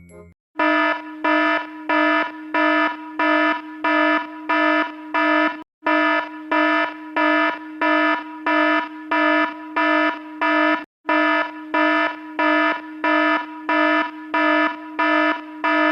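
Fire alarm sound effect: a buzzy electronic horn pulsing evenly about one and a half times a second, with two brief breaks, cutting off just before the end.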